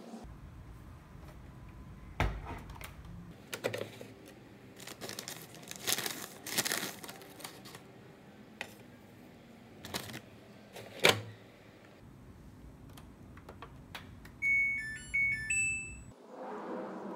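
Clicks, knocks and rustling from loading and closing up a Samsung front-loading washing machine, with its detergent drawer opened and shut and one sharp click standing out. Near the end the machine's control panel plays a short tune of electronic beeps as it is switched on and set.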